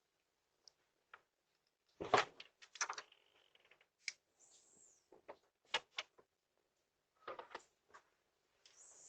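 Irregular sharp clicks and knocks, loudest in a cluster about two seconds in, with scattered lighter clicks after.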